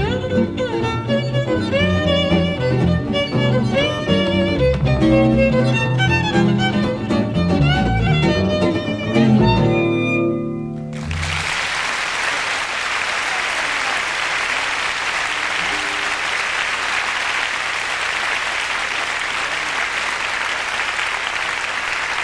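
Jazz violin with guitar playing the closing bars of a tune, ending on a final low note about eleven seconds in, followed by steady audience applause.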